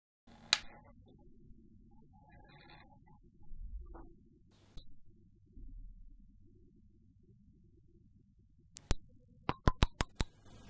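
Ultrasonic cat repeller sounding its deterrent: one steady, very high-pitched tone, loud, with a short break about halfway through. It stops about nine seconds in, followed by a few quick clicks from the unit's dial being turned.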